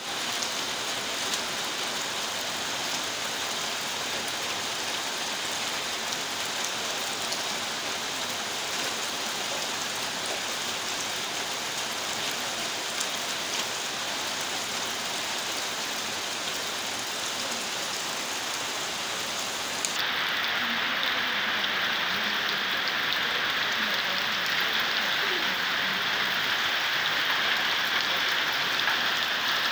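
Heavy rain falling steadily. The sound changes abruptly about two-thirds of the way through and gets a little louder after that.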